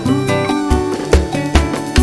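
Upbeat background music with plucked guitar and a steady beat.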